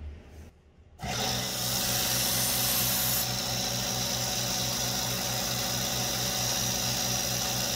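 Belt grinder running: a steady electric-motor hum under the loud hiss of the abrasive belt. It starts abruptly about a second in and cuts off suddenly.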